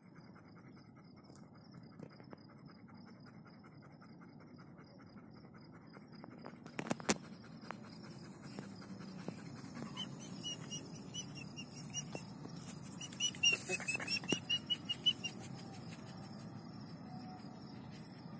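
Crickets or other night insects chirp steadily, a high pulse about twice a second over a continuous buzz. A pet animal gives a few clicks about seven seconds in, then a fast run of short, pitched calls about two-thirds of the way through, the loudest sounds here.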